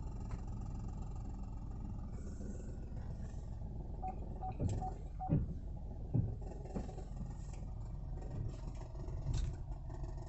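Cabin noise inside a 2021 Chevrolet Tracker: a steady low rumble with a few louder thumps about halfway through, likened to a jackhammer inside the car. The dealer's technician calls the noise normal on every Tracker. Four short high beeps sound about four seconds in.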